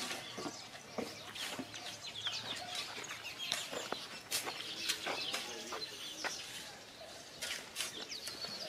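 Birds chirping and calling in many short, quick notes, with scattered brief clicks.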